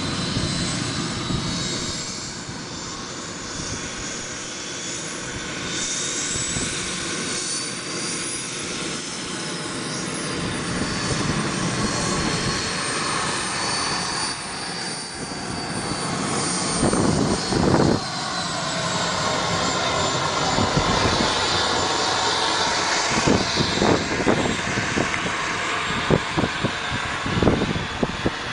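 RC model jet's engine running with a steady rushing noise and a high whine that slowly rises and falls in pitch. Irregular short thumps come in over the second half.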